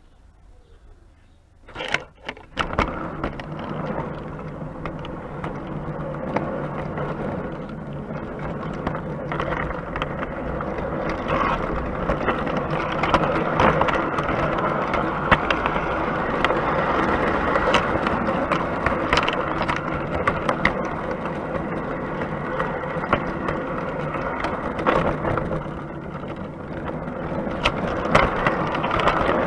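O gauge three-rail model train moving off and running, heard from on board a carriage: a few sharp clicks about two seconds in, then a steady rolling rumble of wheels on the track with a motor hum, dotted with clicks.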